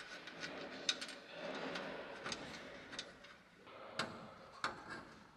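A few light, separate metallic clicks and ticks, about five in all, of a bolt and nut being fitted by hand into a riveted aluminium bracket plate.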